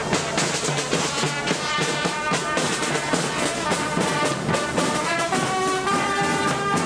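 Marching fanfare corps playing a tune on trumpets, with a bass drum beating time.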